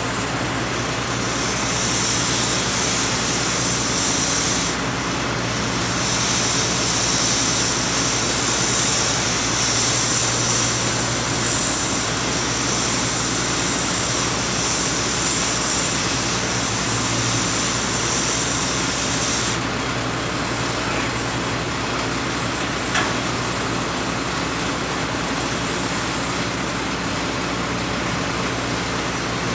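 Gas cutting torch hissing steadily as it cuts through steel on the elevated rail structure, with a brief dip about five seconds in. The hiss stops about two-thirds of the way through, leaving a steady low engine hum.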